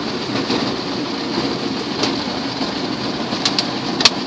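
Water spray from a Ryko Softgloss Maxx in-bay automatic car wash hitting the car's windshield and body, heard from inside the cabin as a steady rain-like hiss, with a few sharp taps near the end.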